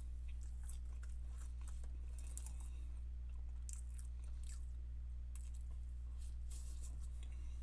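Close-miked chewing of French fries: irregular crunches and wet mouth clicks, over a steady low hum.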